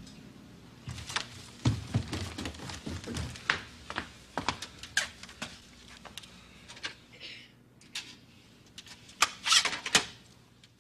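Irregular light clicks and knocks from footsteps and small objects being handled, with a quick cluster of clicks near the end as a stereo on a shelf is worked.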